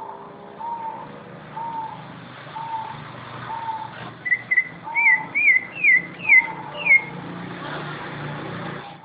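Caged songbirds calling: a short low whistle repeats about once a second, and in the second half a run of about six quick up-and-down chirps joins it, over a steady background hum.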